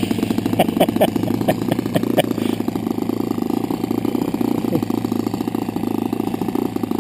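Small model airplane engine running steadily with a fast, even beat, smooth and well tuned. A series of short high chirps sounds over it in the first couple of seconds.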